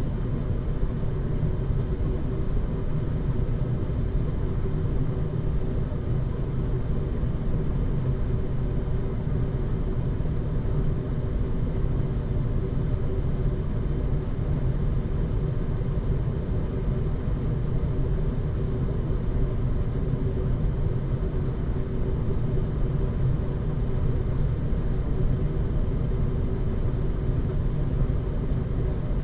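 Air moving through an old ventilation duct: a low, steady rumble of air with a faint constant hum in it.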